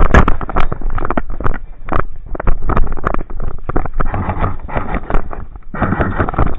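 Airsoft guns firing, rapid irregular cracks and clatter, over rough rustling and wind noise on the microphone.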